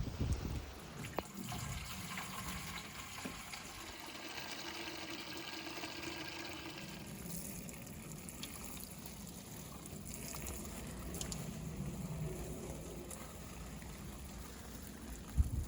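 Water pouring and trickling steadily, changing character about seven seconds in, with a short loud thump near the end.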